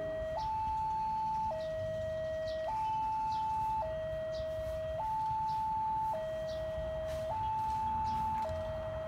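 Railway level-crossing warning alarm sounding: an electronic two-tone signal alternating between a higher and a lower note about once a second, the warning that a train is approaching.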